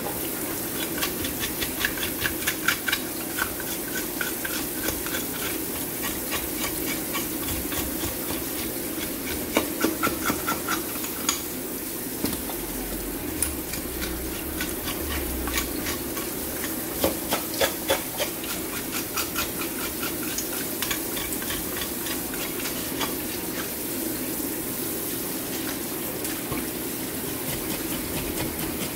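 Metal fish scaler scraping the scales off a red sea bream in runs of quick strokes, under a steady spray of running water.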